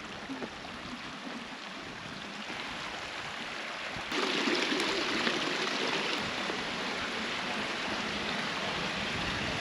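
Steady rush of flowing water, which gets suddenly louder about four seconds in.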